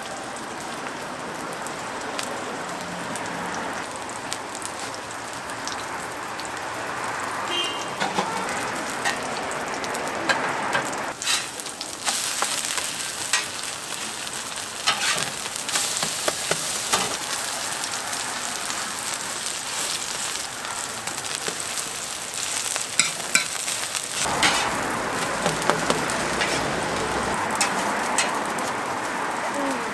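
Korean pancakes (jjijim) sizzling as they fry in oil on a griddle, with occasional sharp clicks and taps.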